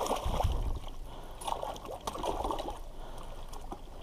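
Water splashing and trickling in short, irregular bursts as hands work in shallow water.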